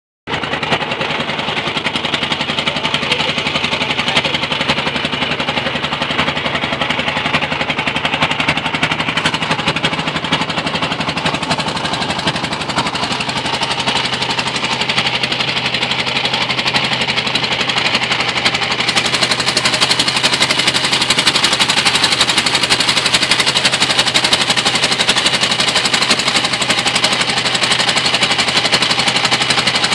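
Boat engine running steadily with a rapid, even knocking, over a rushing hiss that grows brighter past the middle.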